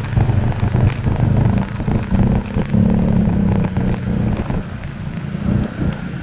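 A motor vehicle engine running, its pitch rising a little a couple of seconds in and easing off near the end.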